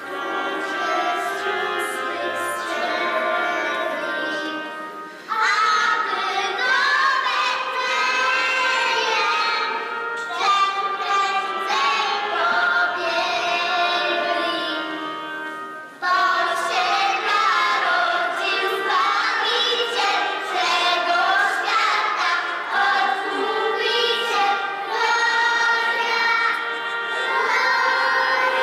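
A group of children singing a song together with music behind them. The singing fades softer twice and comes back in loudly about five and sixteen seconds in.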